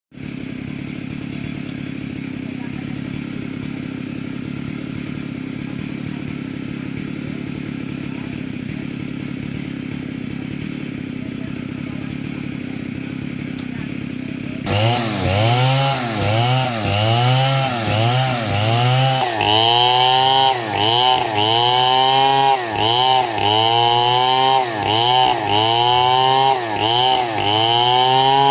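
Stihl two-stroke chainsaw idling steadily, then about halfway through it is revved up and down over and over, roughly once a second.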